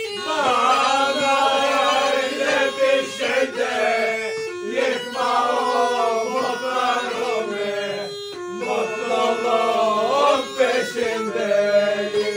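Music: a voice singing long, wavering, gliding phrases over a steady held drone note, with a brief break about eight seconds in.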